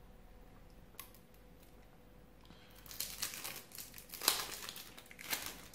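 Plastic wrapping crinkling and rustling in the hands, in several bursts over the last three seconds, as the wrapper is worked off a small deck of cards. A single faint click comes about a second in.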